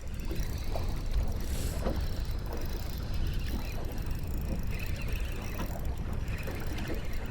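Small fishing boat underway while trolling: a steady low rumble of wind and water, with a few faint ticks.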